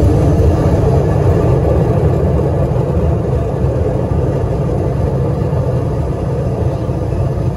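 Loud steady rumble inside the cabin of a regional jet as it rolls out on the runway after touchdown: engine noise and runway rumble, easing slightly as the plane slows.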